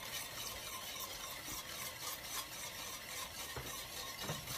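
Wire whisk stirring a thin ube, milk and cream mixture in a stainless steel pan, with a steady run of soft swishing strokes against the pan.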